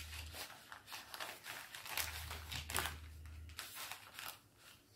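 Rustling and crinkling of a small bag and packaging being handled, in a run of short, irregular crackles.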